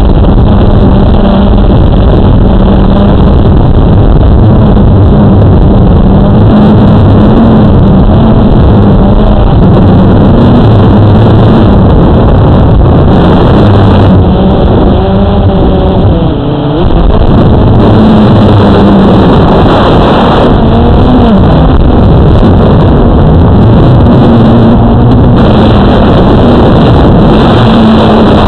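Blade 350 QX2 quadcopter's electric motors and propellers buzzing loudly on the onboard camera's microphone in flight. The pitch wavers with the throttle, gliding down and back up with a brief dip about halfway through.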